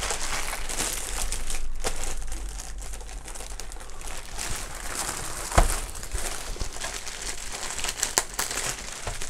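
Clear plastic bag crinkling and rustling as it is pulled off a large LED ring light, with one sharp knock a bit past halfway and a few lighter clicks near the end.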